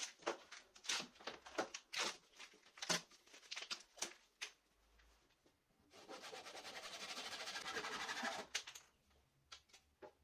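Crackling and snapping of a thin plastic covering as it is peeled off a wooden broom handle. About six seconds in, a Japanese pull saw cuts into the wooden handle for about two and a half seconds, a steady fine rasp of the teeth.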